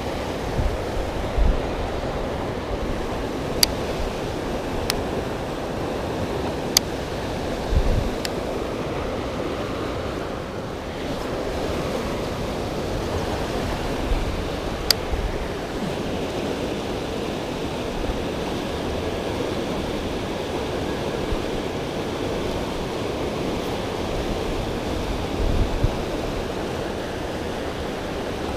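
Steady rush of river water, with a handful of sharp clicks in the first half and a few low bumps of wind on the microphone.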